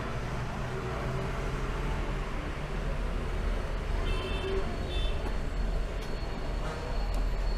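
Steady low rumble of background road traffic, with two brief high-pitched tones a little past the middle.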